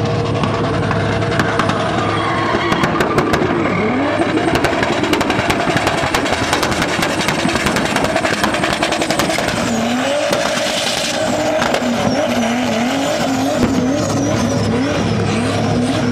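An SUV engine revving hard while its tyres spin and squeal through a smoky donut burnout. In the second half the engine pitch rocks up and down about twice a second as the throttle is blipped.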